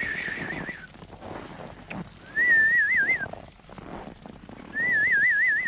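A person whistling short warbling trills, calling the horses over: three trills, at the start, about two and a half seconds in and near the end, each about a second long with the pitch wobbling quickly up and down.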